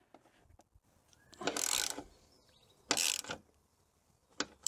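Ratchet wrench clicking in two short bursts, about a second and a half in and again near three seconds, as a stainless nut and bolt with a nylock nut is tightened, with a few faint ticks of metal between.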